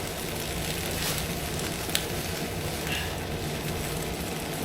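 Garlic and potato strips frying in a pot with a steady sizzle, and a couple of light ticks like a utensil against the pot.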